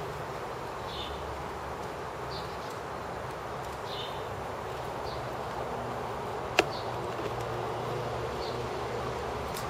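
A single sharp crack from a kyudo shot about two-thirds of the way in, over a steady hiss of hall ambience with faint, short high chirps repeating about once a second.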